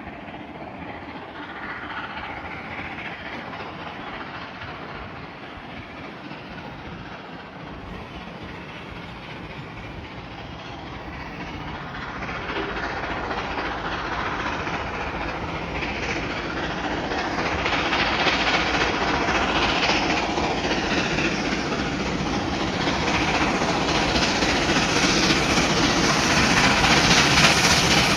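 A train approaching, its running noise growing steadily louder throughout.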